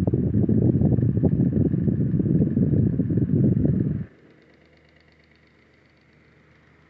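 Windmere 9-inch table fan running on high speed, its airflow buffeting the microphone as a loud, fluttering low rumble. About four seconds in the rumble cuts off abruptly, leaving only a faint hum.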